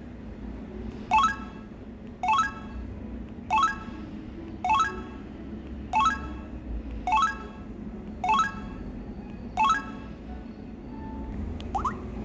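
Samsung Anycall SCH-W120 mobile phone's speaker playing a ringtone or sound effect: a short, bright chime, each a quick rising run of notes, repeating about every 1.2 seconds, eight times, with a small upward blip near the end.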